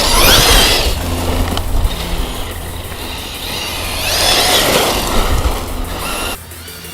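Arrma Talion RC truck's brushless motor on 6S whining as it speeds up and backs off, two bursts of gliding pitch over a rough rushing noise. The sound drops off sharply near the end.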